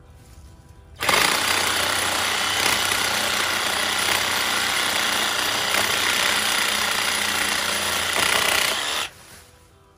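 DeWalt cordless reciprocating saw cutting through a hazel stem. It starts abruptly about a second in, runs at a steady pace for about eight seconds, and stops abruptly near the end.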